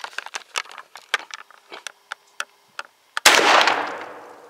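A 20-gauge single-shot shotgun fires a slug once, about three seconds in: one loud blast that fades out over a little more than a second. Scattered light clicks and taps come before it.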